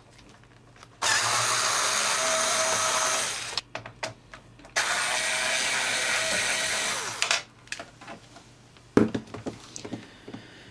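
Power driver running twice for about two and a half seconds each, backing out the screws that hold the monitor stand on, followed near the end by a couple of sharp knocks as parts are handled.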